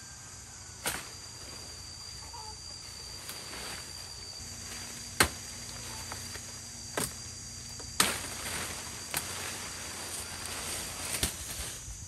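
Steady high-pitched insect chorus of crickets or cicadas, with about six sharp snaps at irregular intervals, the loudest about five seconds in. The snaps are stems and twigs breaking as weeds and leaves are pulled and cut by hand.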